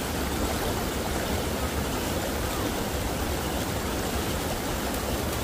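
Steady rushing of a stream or river, an even unbroken wash of water noise.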